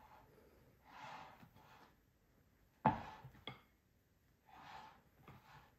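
Spatula folding chocolate mousse in a glass bowl: faint soft swishes, with one sharp knock of the spatula against the glass about three seconds in and a small click just after.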